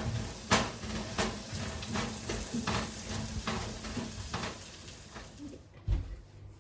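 Food sizzling in a frying pan while being stirred, the spatula scraping the pan in repeated strokes about every half to three-quarters of a second, fading toward the end. A dull knock near the end.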